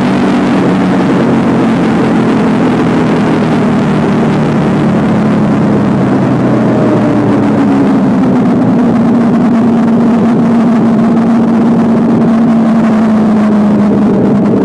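A motorcycle engine running steadily while riding, with wind rushing over the microphone. The engine note shifts about halfway through, then holds steady.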